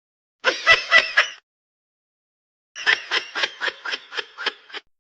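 Two bursts of rapid laughter: a short one about half a second in, then a run of about ten quick pulses that fade away.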